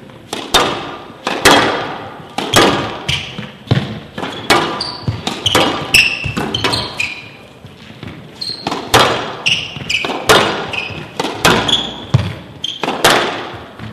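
Squash rally on a glass-walled court: the ball's sharp cracks off rackets, front wall and glass, one to two a second, each echoing in a large hall, with short shoe squeaks on the court floor between hits.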